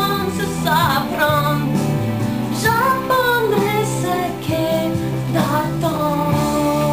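Music: a woman singing a French pop song over steady instrumental backing.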